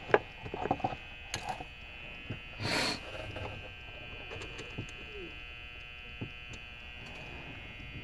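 Light clicks and taps of small metal lock parts being handled: a sharp click at the start, a quick cluster of smaller ones, and a short burst of noise near three seconds in, then quiet handling.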